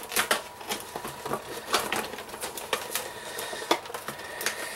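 A toy's retail packaging being pulled apart by hand: irregular crackling and sharp clicks, with a few louder snaps.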